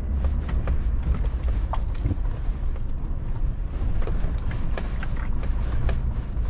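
Four-wheel-drive vehicle driving slowly over a rocky dirt track: a steady low engine and drivetrain rumble, with scattered clicks and knocks from gravel and stones under the tyres.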